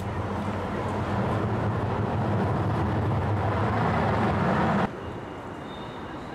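Low rumbling vehicle noise that grows louder over several seconds, then cuts off abruptly about five seconds in. Quieter outdoor noise follows, with a faint thin high squeal.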